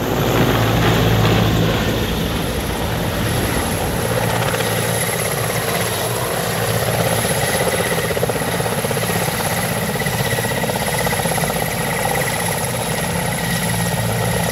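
Mil Mi-17 transport helicopter in flight. Its rotor beats fast and steadily, with a thin, steady high whine running through it.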